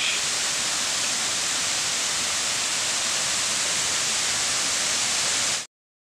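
Waterfall rushing: a steady, even hiss of falling water that cuts off abruptly about five and a half seconds in.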